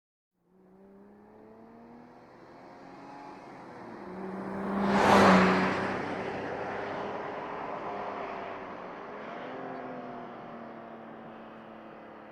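A car approaches with its engine running, passes close by at its loudest about five seconds in, then pulls away, its engine note climbing and stepping back down twice as it fades.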